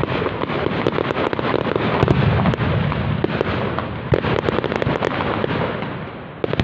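Aerial fireworks display: a dense, continuous run of cracks and bangs. It eases off briefly just before the end, then picks up again suddenly.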